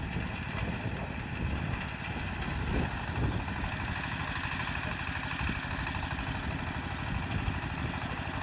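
Forte 240 mini tractor's engine running steadily while it pulls its rear rotary tiller through the garden soil.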